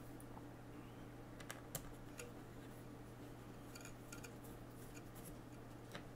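Faint scattered clicks and light taps of fingers handling small parts inside an open MacBook Pro case, over a steady low hum.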